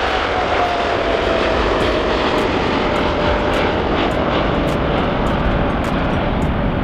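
Boeing 747-8F freighter's four GEnx-2B turbofans at takeoff power as the jet lifts off and climbs away: a steady, loud jet roar with one engine tone slowly falling in pitch.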